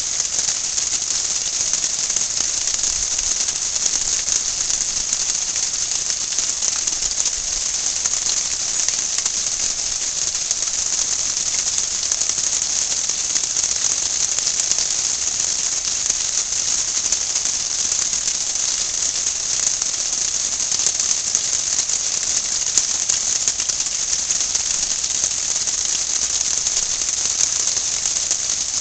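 Small waterfall trickling and splashing over stacked stone into a garden pond: a steady, even hiss of falling water.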